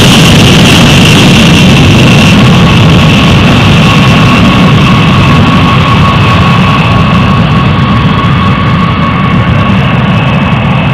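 B-52H Stratofortress's eight TF33 turbofan engines at take-off power as the bomber climbs away: a loud, deep rumble with a high whine that fades a couple of seconds in as the aircraft recedes.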